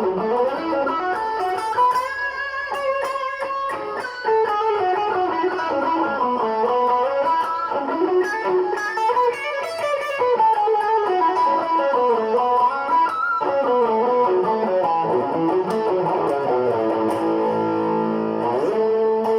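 Electric guitar played through a Boss DS-1 distortion pedal: a melodic lead line of held, bending notes, with a slide up near the end.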